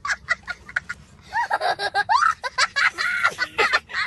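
Young boy laughing hard in quick bursts, several a second, then breaking into long, high, wavering cries.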